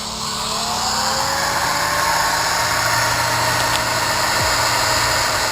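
Handheld electric power tool spinning up with a rising whine over the first second, then running steadily at speed with a loud hiss.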